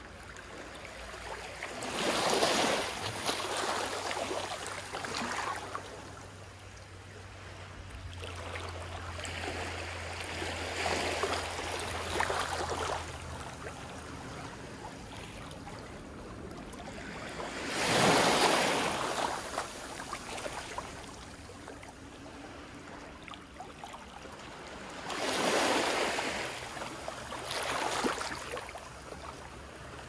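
Small, gentle waves washing up a sandy beach and draining back, swelling and fading every several seconds, with a few louder washes.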